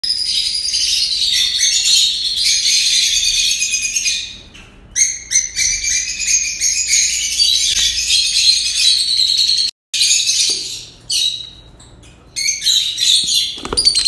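Many caged small parrots chirping and chattering at once in a dense, high-pitched chorus. It dips briefly about four seconds in, cuts out for a moment just before ten seconds, and is quieter for a second or so after that.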